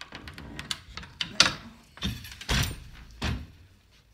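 Wooden floor loom being worked: the beater knocking the rag weft into place and the shafts clunking as the shed changes, a run of wooden knocks and heavier thuds with small clicks and rattles between.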